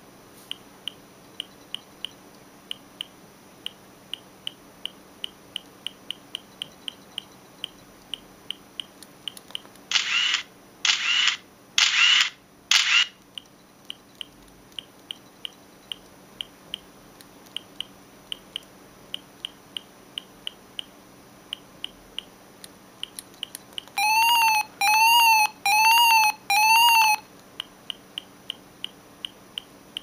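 A Siemens C65 mobile phone playing one of its stock ringtones: a steady ticking, a little over two ticks a second, with four short loud beeps about ten seconds in and four quick chirps that rise and fall in pitch near the end.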